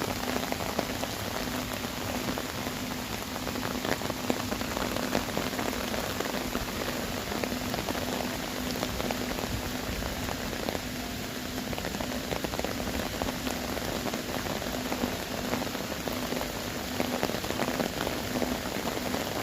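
Heavy rain pouring steadily onto earthenware crock jars, a dense patter of drops striking the lids and surfaces.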